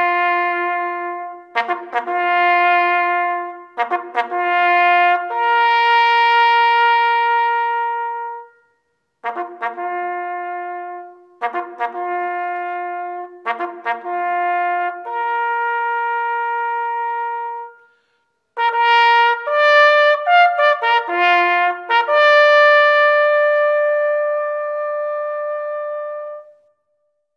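Solo bugle call on a brass horn: clipped short notes lead into held ones, the opening phrase is played twice with a short break between, then a quicker run of notes ends on a long high note.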